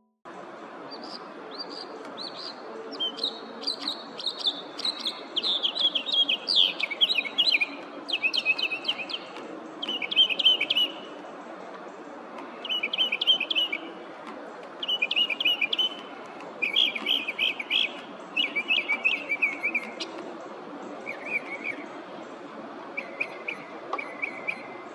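A songbird singing: a run of rapid, varied warbled notes, then a series of short, quick phrases of a second or so each, repeated with brief pauses, over a steady outdoor hiss.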